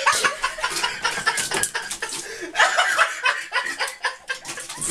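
A person chuckling and laughing in short, breathy bursts.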